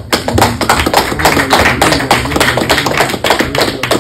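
Dense, irregular run of sharp taps and claps, louder than the soft background music under it.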